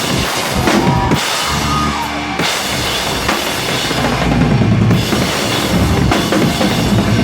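Live rock band playing loudly, with the drum kit to the fore: bass drum and snare hits driving a steady beat.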